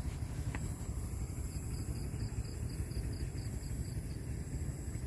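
Low steady outdoor rumble of a road at night, picked up by a phone's microphone, with faint high-pitched pulses about four times a second in the middle.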